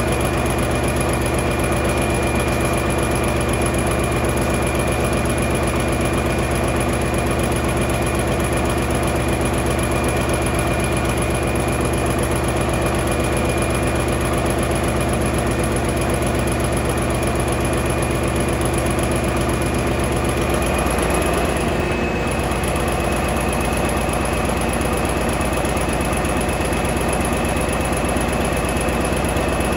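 Caterpillar D397 V12 diesel engine running steadily. About two-thirds of the way through, its note shifts and drops slightly in level.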